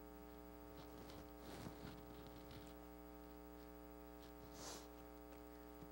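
Near silence: a steady electrical mains hum, with a few faint rustles about one and a half to two and a half seconds in and again near five seconds.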